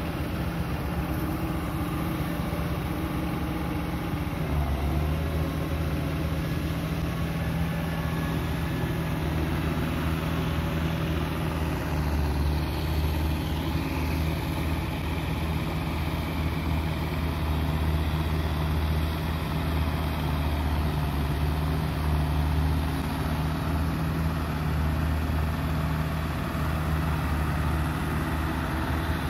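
Diesel farm tractor engine running steadily under load while it pulls a tiller through a wet paddy field. Its low drone grows stronger about four seconds in.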